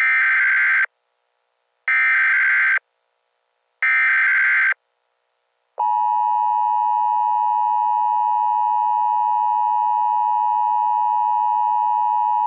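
Emergency Alert System header: three one-second bursts of SAME digital data tones about two seconds apart, then, about six seconds in, the steady two-tone EAS attention signal starts and holds.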